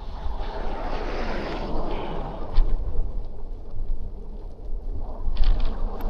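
City street traffic noise with wind rumbling on an action camera's microphone, and two short knocks, about halfway through and near the end.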